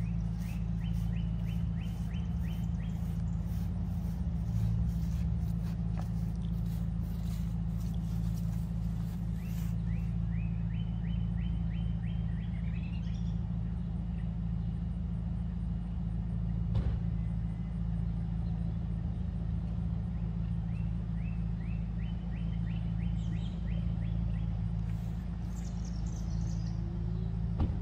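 A neighbor's motor-driven equipment running steadily in the background, a low hum holding several pitches at once. A bird sings a quick run of repeated notes three times over it.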